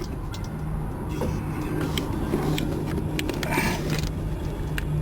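Steady low engine hum of a vehicle idling, with a few light clicks and a short hiss about three and a half seconds in.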